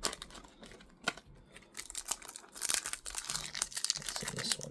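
Booster pack wrapper crinkling as it is handled and opened, with a few light clicks of cards at first, then dense crackling from about two seconds in.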